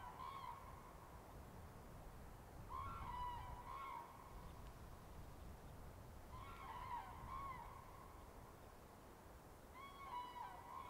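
A bird calling: a short group of pitched, honking notes, repeated four times about every three and a half seconds, over a low wind rumble.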